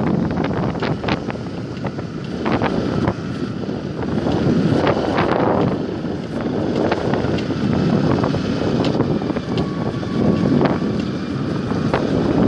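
Wind buffeting the microphone on a moving Yamaha R15 motorcycle, with the bike's single-cylinder engine running underneath. Short clicks and knocks come and go throughout.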